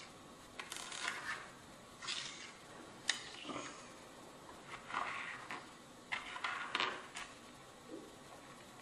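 Buttons and beads clicking and sliding on a wooden tabletop as they are picked up, pushed and set down into groups: a series of irregular small clicks and short scrapes.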